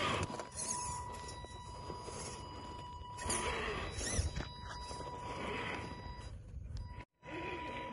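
1/8-scale Traction Hobby Cragsman RC rock crawler's electric drivetrain whining as it crawls, the whine rising and falling in pitch a few times as it works over rocks, with its tyres crunching on loose gravel. A thin steady high tone sits under it, and the sound cuts out briefly about seven seconds in.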